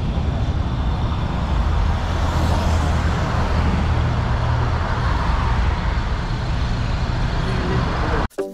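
Road traffic passing on a multi-lane road: a bus and cars drive by, a steady rumble of engines and tyres that swells in the middle. It cuts off abruptly just before the end.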